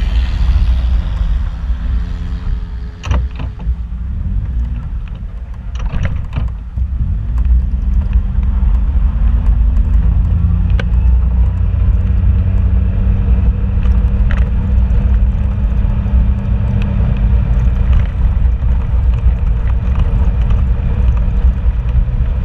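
Vehicle engine and road noise heard from inside the cab while driving a rough gravel road, a steady low rumble whose engine note shifts now and then. Sharp knocks and rattles come as the vehicle goes over bumps.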